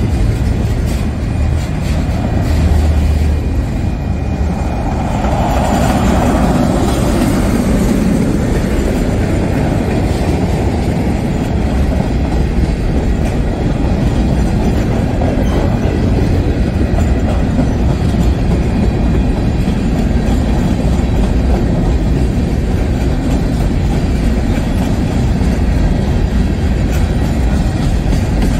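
A freight train's cars rolling past close by, autoracks and covered hoppers: a loud, steady noise of steel wheels running on the rails.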